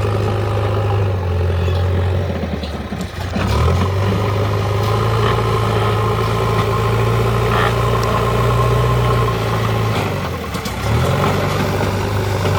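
Diesel engine of a JCB 3DX backhoe loader running under working load. It picks up and holds in long spells, easing off briefly about three seconds and ten seconds in.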